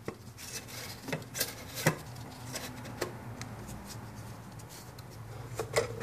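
Handling noises at an engine's oil filter housing: scattered, irregular clicks and knocks with light rubbing as hands and a wrench work the loosened plastic filter cap, over a faint steady hum.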